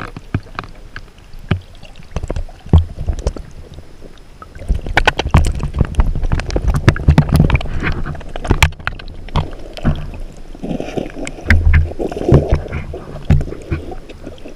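Muffled underwater sound from an action camera held under river water: water rushing and bubbling with irregular clicks and knocks against the camera housing, louder in two stretches through the middle and near the end.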